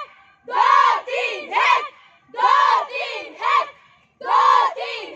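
Group of girl cadets shouting a short slogan in unison, three syllables each time, repeated three times about two seconds apart.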